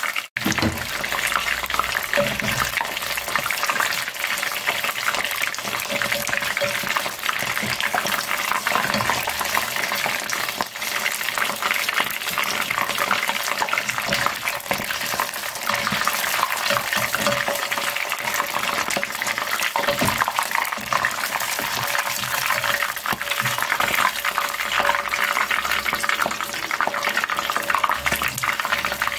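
Battered oysters deep-frying in a pot of hot oil: a steady, dense crackle and sizzle of many small pops, while a wire mesh skimmer stirs and turns them in the oil.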